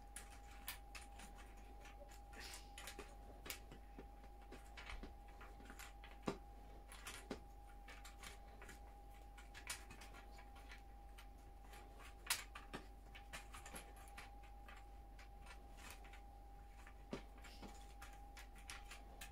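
Small cardboard jigsaw puzzle pieces clicking and tapping as they are picked through and sorted by hand: light, irregular taps, a few louder ones, over a faint steady tone.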